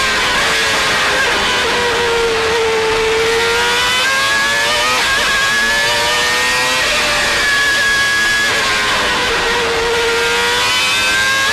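McLaren Mercedes V10 Formula 1 engine heard onboard at racing speed. Its revs drop for a corner, climb in quick steps through several upshifts, drop again, and pick up once more near the end.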